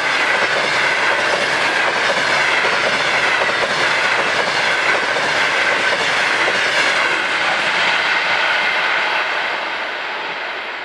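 Express train's passenger carriages rolling past at speed: loud, steady noise of wheels running on the rails, which starts to fade near the end as the last carriage goes by.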